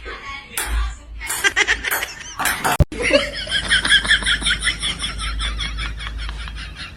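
A person laughing in quick, high-pitched bursts, about four or five a second, that trail off near the end, after a few shorter bursts of sound before a cut.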